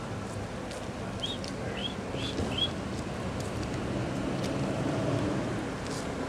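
Steady outdoor street background noise with a faint low hum, and four short, high chirps from a small bird between about one and three seconds in.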